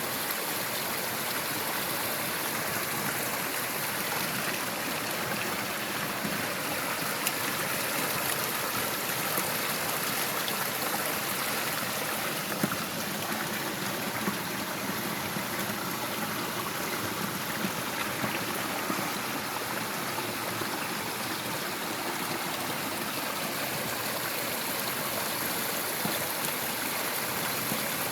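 Running water rushing steadily, like a stream or small waterfall.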